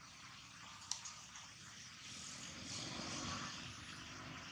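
A faint vehicle passing, swelling about two seconds in and fading toward the end, under steady outdoor background noise, with a single sharp click about a second in.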